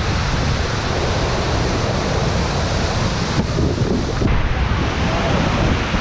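Thunderous, steady rush of a high-volume 25-metre waterfall heard right at its base, with spray and wind buffeting the microphone.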